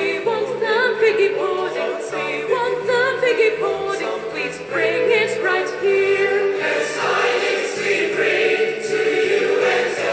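Background music: choral singing of a melody over a steady low accompaniment.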